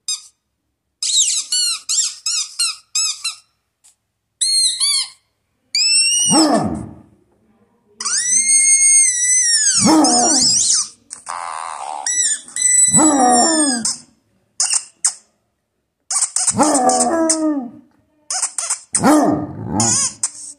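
Basset hound howling: short high whines in the first few seconds, then about five drawn-out howls, each sliding down in pitch at its end, with short pauses between them.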